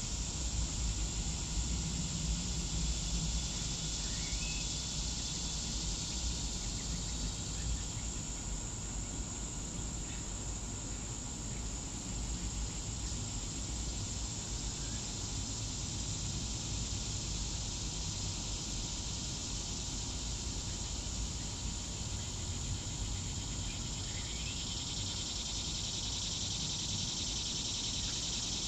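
Steady, high-pitched insect chorus that swells near the end, over a low steady rumble. Two faint, short rising chirps come through, about four seconds in and near the end.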